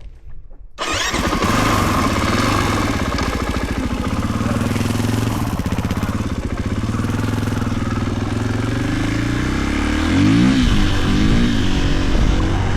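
Husqvarna FE 450 single-cylinder four-stroke motorcycle engine, loud and running steadily after coming in suddenly about a second in; near the end the revs rise and fall a few times.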